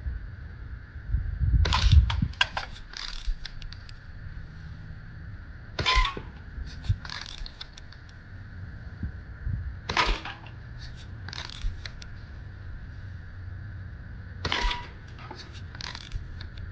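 Daisy Model 105 Buck lever-action spring BB rifle being cycled four times, about four seconds apart: each time a sharp snap followed by a quick run of smaller metallic clicks from the lever and spring action as it is fired and cocked.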